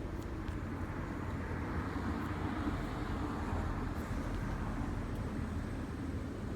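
Steady road traffic noise, with a vehicle passing and swelling louder from about two to four seconds in.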